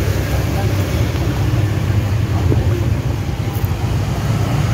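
Street traffic: cars and motorbikes passing on a narrow city street, a steady low rumble.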